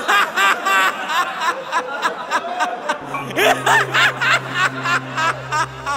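A man laughing in a long run of short 'ha' bursts, about three a second, over background music. A low steady drone comes in about halfway through.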